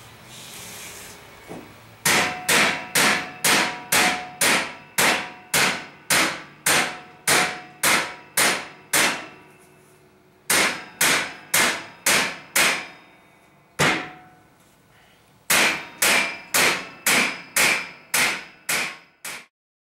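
Hammer blows on the sheet-steel forge table and fire pot as the fire pot is seated in its opening, about two ringing metal strikes a second. The blows come in three runs, with pauses and a single blow between them.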